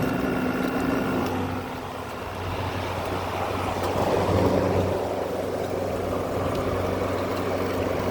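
GE 6,000 BTU wall air conditioner running: a steady low motor hum under a rush of fan air. The hum dips briefly about two seconds in and returns, and the air noise grows louder from about four seconds in.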